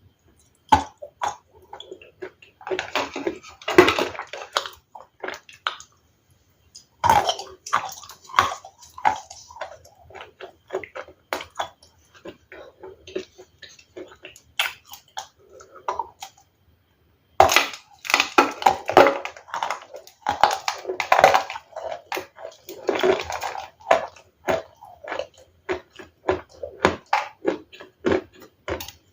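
Ice being bitten and chewed close to the microphone: dense runs of crisp, crackling crunches in bursts, broken by two short pauses, about six seconds in and about sixteen seconds in.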